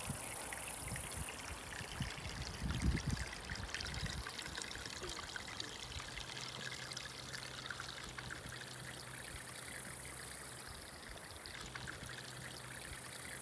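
Water trickling and running through a beaver dam in a shallow creek, a steady gentle wash, with a low thump a little under three seconds in.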